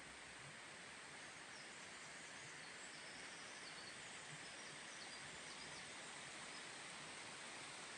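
Faint, steady outdoor background hiss, with a few faint high chirps about halfway through.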